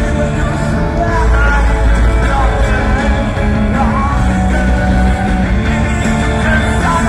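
Garage rock band playing live and loud through big festival speakers, a singer's voice over the band, heard from within the crowd.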